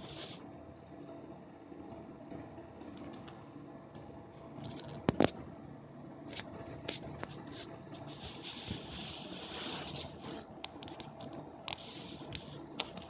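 Nearly new computer power supply unit giving off an irregular high-pitched buzzing crackle in bursts, from a fraction of a second to about two seconds long, with sharp clicks in between. This is an abnormal noise that the owner cannot explain.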